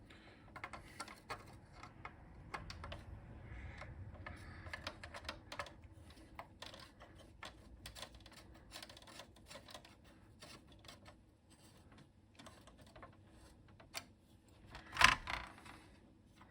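Small, irregular metal clicks and scrapes of a screwdriver driving a screw through a heat sink into a rectifier on a circuit board, with a louder knock about 15 seconds in.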